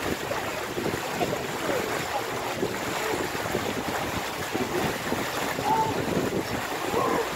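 A river cruise boat under way: a steady rush of wind on the microphone over the boat's running and water washing along the hull.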